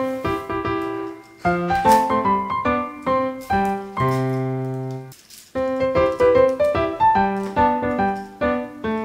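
Background piano music: a flowing run of notes, a chord held for about a second around four seconds in, a short break, then the melody picks up again.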